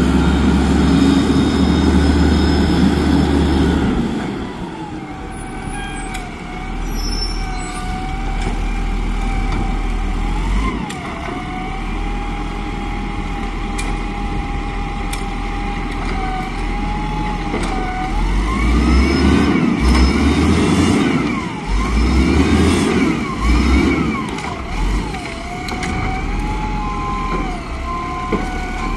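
Volvo garbage truck with a Rapid Rail side-loader body running, with a steady high whine. The engine revs up several times about two-thirds of the way through, and the whine rises and falls in pitch with each rev. The run starts loud and heavy for the first few seconds.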